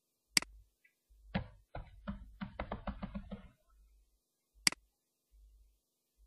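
Computer keyboard typing, a quick run of keystrokes lasting about two seconds. A single sharp mouse click comes just before the typing and another about a second after it.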